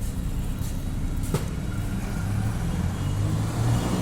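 Steady low motor hum, like a nearby engine or machine running, with one sharp click about a second and a half in.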